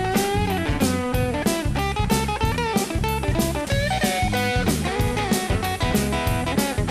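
Instrumental break of a blues song: a guitar lead with bending notes over bass and a steady drum beat.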